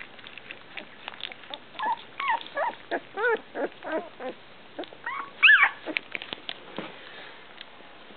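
Three-week-old rough collie puppies whimpering in short, high, arching squeaks, a quick run of them from about two to four seconds in and the loudest one about five and a half seconds in, over small wet smacking and lapping clicks as they eat mushy puppy food from a bowl.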